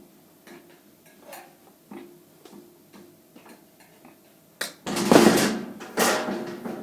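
Light clicks and taps of work on a kitchen cabinet and dishwasher, then a sharp click and two loud scraping, sliding noises about five and six seconds in.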